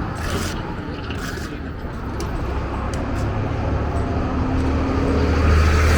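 Street traffic: a motor vehicle's engine running, growing louder over the last few seconds as it draws near.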